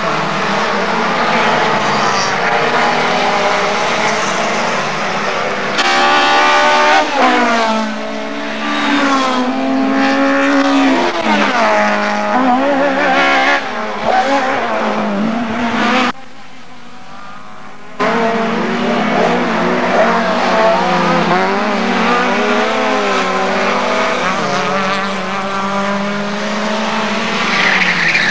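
Race car engines revving hard as several cars pass, the pitch repeatedly rising and falling through the gears. The sound drops away briefly a little past halfway.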